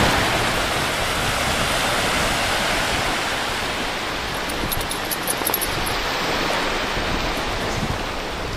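Steady rushing of small waves breaking on a sandy shore, mixed with wind on the microphone, easing slightly in the second half.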